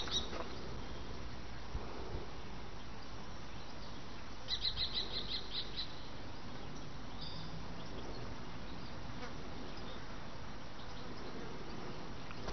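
Outdoor field ambience: a steady low hiss, with a small bird giving a quick run of about eight high chirps around the middle and a short call soon after.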